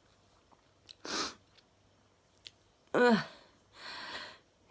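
A woman's breathing and voice during an allergy sneezing fit. There is a short sharp breath about a second in, then a loud vocal burst falling in pitch about three seconds in, followed by a breathy exhale.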